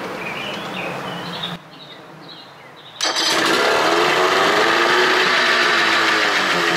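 Johnson 25 hp two-stroke outboard motor in a test barrel catches suddenly about three seconds in and runs loudly, its pitch sagging slightly and then picking back up.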